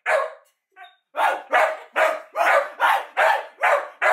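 A dog barking: one bark, a short pause, then a steady run of loud barks at about three a second.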